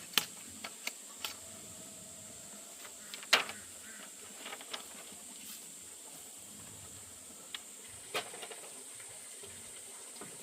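Scattered sharp clicks and knocks, the loudest about three seconds in, over a steady high-pitched hiss.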